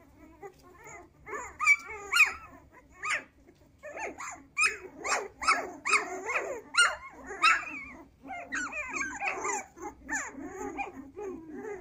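Dalmatian puppies calling: a busy run of short, pitched dog cries, one after another, starting about a second in.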